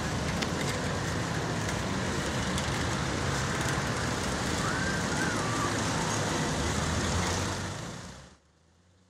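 Street traffic noise with a motor vehicle's engine running nearby, steady and loud, cutting off abruptly about eight seconds in.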